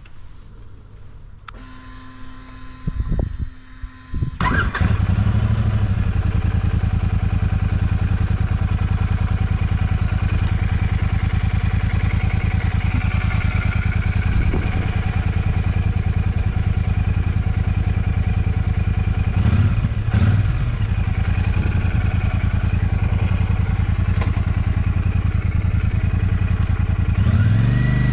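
Royal Enfield Shotgun 650's 648 cc parallel-twin engine being started about four seconds in, after a few clicks and a faint steady whine, then idling steadily. Two quick throttle blips come at around twenty seconds, and a rev rises and falls near the end.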